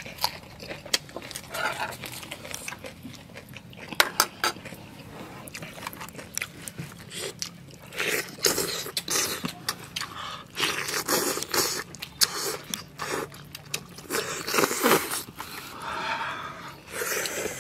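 Close-up eating sounds: biting, crunching and chewing of boiled chicken and fresh greens, in repeated loud bursts with sharp clicks and scrapes between them.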